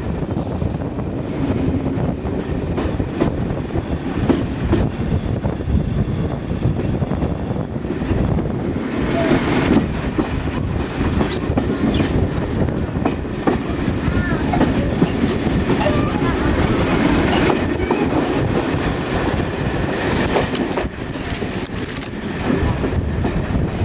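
Class 121 single-car diesel multiple unit running along the line: a steady low rumble of the moving railcar, with irregular clicks of its wheels on the track.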